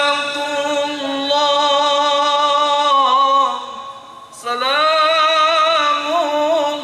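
A man chanting sholawat, Islamic devotional praise, unaccompanied into a microphone in long held melismatic notes with slow wavering ornaments. He pauses for a breath about four seconds in, then begins a new phrase.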